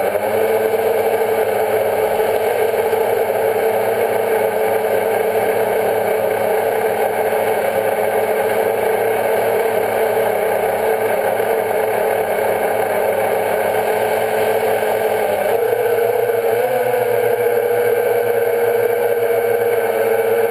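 Quadcopter's electric motors and propellers whining steadily, picked up close by the camera on the drone. The pitch steps up slightly about three quarters of the way through.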